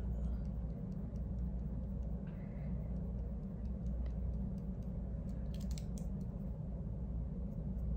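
Steady low room hum, with faint light ticks and a brief faint scratchy rustle about six seconds in.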